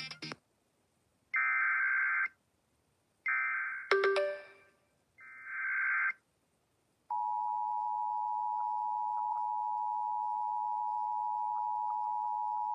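Emergency Alert System SAME header: three bursts of harsh digital data warble, each about a second long and a second apart, with a sharp click during the second burst. About seven seconds in comes the steady, loud two-tone EAS attention signal, which marks the start of an emergency alert, here a fire warning.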